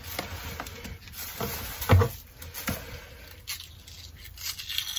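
Hands pulling the inner layers out of a cut white onion over a plastic cutting board: soft handling noise with a few light knocks, the loudest about two seconds in.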